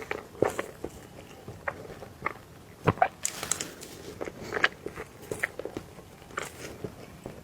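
Close-miked mouth sounds of someone eating soft cake: irregular wet chewing clicks and lip smacks, loudest about three seconds in.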